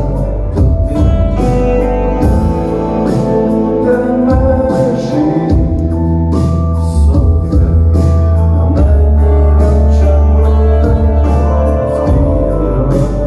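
Live band music: an organ-like keyboard and electric guitar over a heavy, steady bass, with a regular beat.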